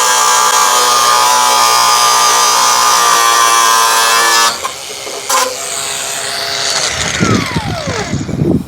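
Handheld power tool running steadily at high speed for about four and a half seconds, then cutting off. Near the end there is a short falling whine and some low knocks.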